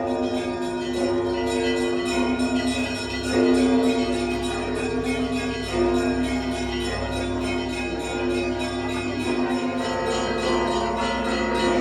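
Russian Orthodox church bells ringing a festive peal: the long, overlapping tones of the larger bells under fast, continuous strikes on the small bells, with heavier strokes about three and a half and six seconds in.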